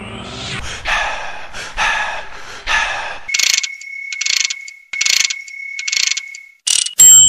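Electronic sound effects in a dance-track mix: a rising sweep, then three hissing swooshes about a second apart, then four evenly spaced hissing hits over a steady high beep. It ends in a short, very loud blast of noise.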